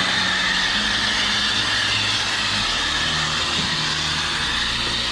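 Steady mechanical hum with a hiss over it, the low hum shifting in pitch about two and a half seconds in.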